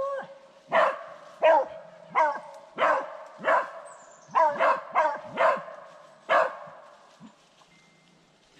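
Beagle barking in a quick, uneven series of about a dozen sharp barks that stops about two seconds before the end. The dog is barking at the hole where the rabbit went to ground.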